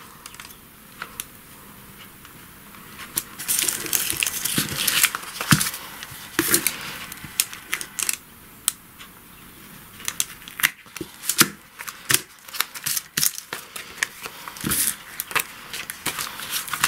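Duck masking tape peeled off its roll with a crackling rip and pressed along paper envelopes, then cut with scissors, followed by a run of sharp clicks and taps as the paper is handled.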